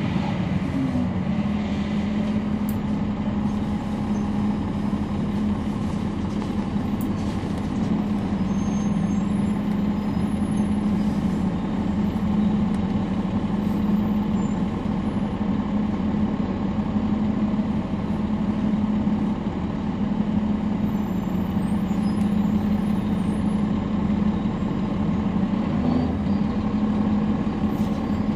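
Cummins ISL9 diesel engine of a 2011 NABI 40-SFW transit bus running at a steady, unchanging pace, heard from inside the bus as a continuous low hum.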